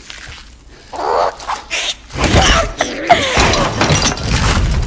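Film sound effects of magical creatures: animal-like yelps and whimpering cries. Quiet at first, with one short burst about a second in, then much louder and busier from about two seconds in.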